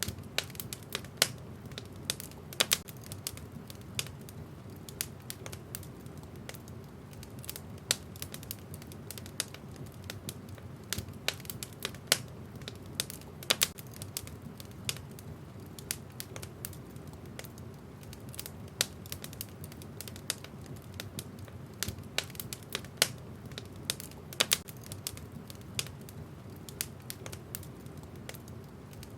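Wood fire burning in a fireplace, logs crackling with irregular sharp pops and snaps over a steady low rumble of the flames.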